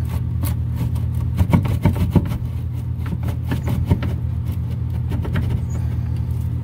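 Hands working the heater core pipes and their bracket loose behind the dash: a string of light clicks and knocks of metal and plastic parts, loudest about one and a half to two seconds in, over a steady low hum.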